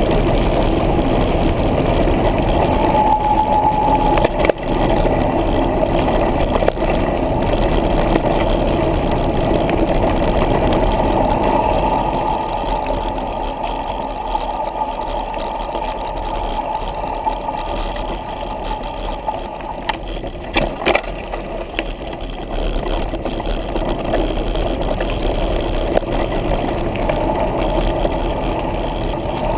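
Steady rushing and rumbling of a Trek Rumblefish mountain bike descending a dirt trail: wind buffeting the camera microphone over tyre noise on dirt and leaves. A few sharp knocks from bumps, two close together about two-thirds of the way in.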